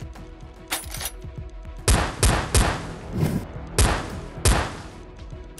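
Gunshot sound effects laid over a Nerf Mega blaster firing: one sharp shot about a second in, then about six heavy shots between two and four and a half seconds, over background music.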